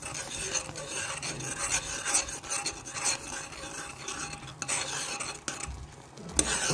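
Utensil stirring and scraping around a pot of chocolate ganache (milk, chocolate and butter), in repeated irregular scraping strokes.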